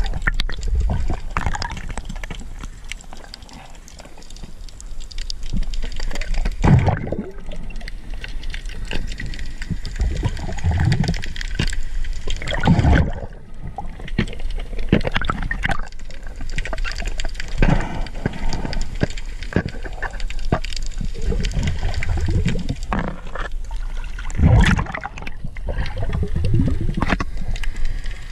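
Water gurgling and churning around an underwater camera as the diver moves, with irregular louder whooshing surges and a constant crackle of small clicks.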